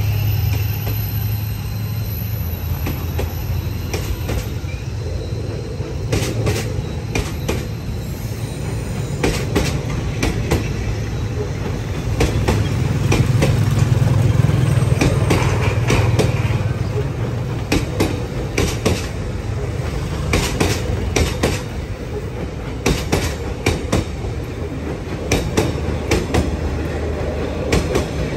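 Vietnam Railways passenger train rolling past close by: a steady low rumble of the coaches, with the wheels clacking over the rail joints in irregular clusters.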